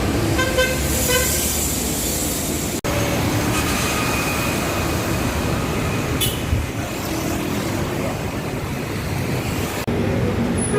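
Busy street traffic with buses running and passing, a dense steady noise. Near the start there is a quick run of short beeps, and the sound breaks off sharply twice where the footage is cut.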